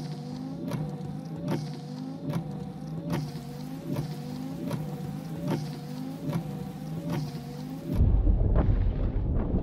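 A car's rhythmic mechanical clicking, each click with a short bending whine, repeating about every 0.8 s over a low steady hum. About eight seconds in it gives way to a loud, deep rumble.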